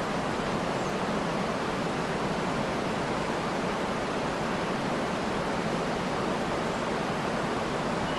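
Waterfall rushing in a steady, unbroken wash of water noise.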